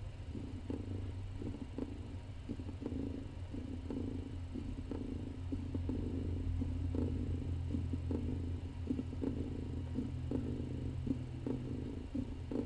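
Domestic cats purring steadily: a mother cat nursing her young kittens, a continuous low purr with an uneven pulsing texture.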